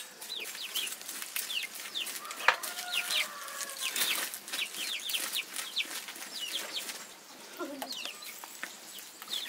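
Domestic chicks peeping in many short, high, falling notes, with a few lower clucks from grown chickens. Two sharp knocks come about 2.5 and 4 seconds in.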